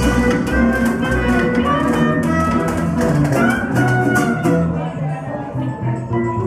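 Live trad jazz swing band playing an up-tempo number: plucked double bass and strummed guitar keep the rhythm under washboard clicks, with melody lines from the horns and clarinet.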